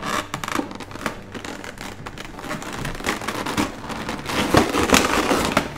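Clear plastic blister-tray packaging crinkling and crackling under the hands as it is handled and lifted, busier and louder in the last couple of seconds.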